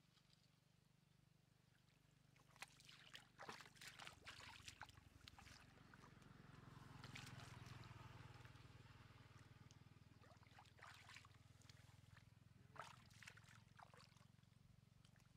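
Faint splashing and sloshing of bare feet and hands in shallow muddy water, in clusters of small splashes a few seconds in and again near the end.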